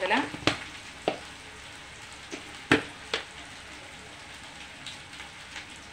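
Steady, faint hiss of a stainless-steel pot of beetroot heating in water on a gas stove, broken by a few sharp clicks.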